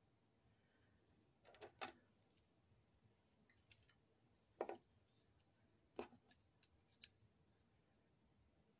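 Faint, scattered clicks and taps from handling small jewelry-craft pieces, a strand of crystal beads and a pair of jewelry pliers, in a few groups a couple of seconds apart.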